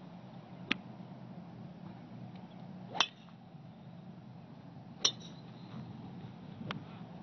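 Four sharp clicks of a child's golf club striking golf balls, the loudest about three seconds in, over a steady low background noise.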